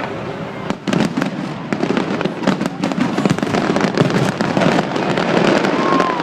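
Fireworks going off in a dense, rapid string of bangs and crackles that starts about a second in and keeps going.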